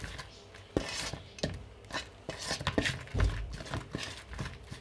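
A hand squishing and mixing a thick, wet spice-and-yogurt marinade in an aluminium bowl: irregular soft squelches and light taps against the bowl, with a low bump about three seconds in.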